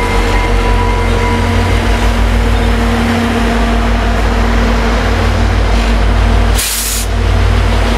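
EMD F40PH-2D diesel-electric locomotives passing at close range at slow speed, their engines running with a heavy low rumble and a steady hum as the train slows for a station stop. A brief hiss of air sounds near the end.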